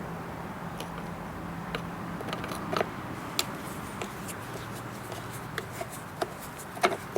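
Scattered light clicks and taps of hand work on a lawn mower tipped on its side, over a faint steady low hum.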